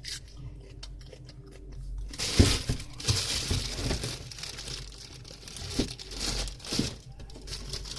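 Crinkling, tearing and crunching as lettuce is handled and broken up, loudest from about two seconds in until about seven seconds, with sharp crackles throughout.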